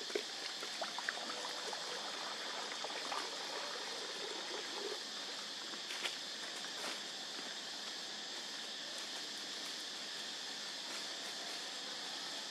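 Water poured from a plastic jug into a small shallow tray on the ground, trickling and splashing for the first few seconds. A steady high hiss runs throughout, with a couple of footfalls on dry leaves around the middle.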